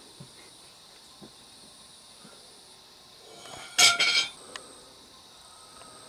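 Steady high chirring of night insects, with a sudden loud clink about four seconds in that rings briefly before fading.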